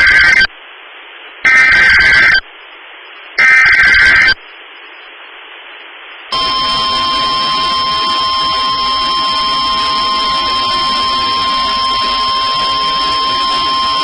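NOAA Weather Radio SAME alert header: three short buzzing digital data bursts about two seconds apart, with hiss between them. From about six seconds in, the steady 1050 Hz Weather Radio warning alarm tone sounds, the signal that a warning message follows.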